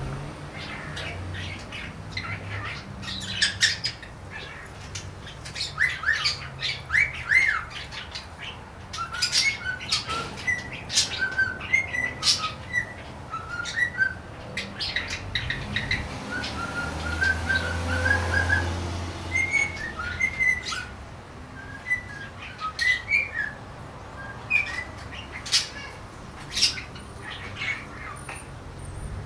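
Pet cockatiel chattering: an irregular run of short chirps, squawks and whistled notes.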